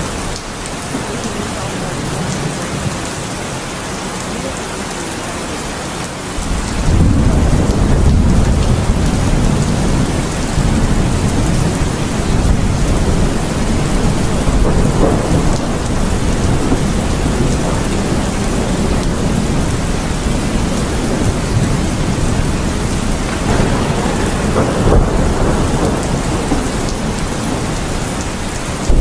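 Steady rain with thunder. A heavy, low rolling rumble of thunder swells in about six seconds in and keeps going over the hiss of the rain.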